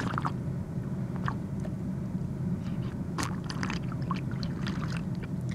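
Drinking sound effect: scattered short gulping and liquid sounds over a steady low hum.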